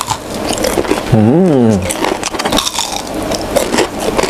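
Close-miked chewing of a fried fish fillet, with crackly crunches and mouth clicks throughout. About a second in comes a short hummed 'mmm', rising then falling in pitch.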